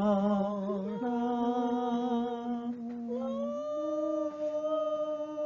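Elderly man singing a melody wordlessly on "da", holding long notes that step up in pitch about a second in and again a little past three seconds.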